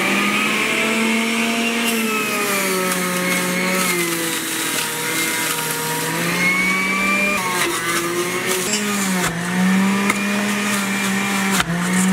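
Electric juicer motor running steadily as celery stalks are fed in and crushed, its pitch sagging and recovering a few times as the motor takes the load.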